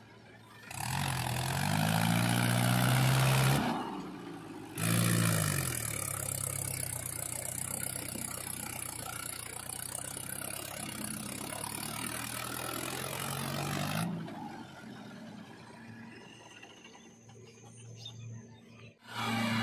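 Mahindra Yuvo 4x4 tractor's diesel engine labouring as it pulls a trailer through deep paddy-field mud, the revs climbing in several surges with short breaks between them. It runs quieter over the last few seconds.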